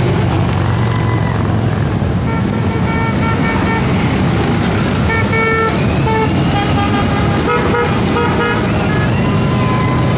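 Motorcycle engines running as touring motorcycles ride past, with horns tooting in many short beeps from about two seconds in until near the end.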